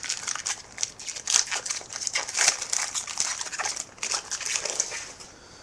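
Foil wrapper of a Topps Chrome card pack being torn open and crinkled in the hands: a dense run of crackling rustles that stops about five seconds in.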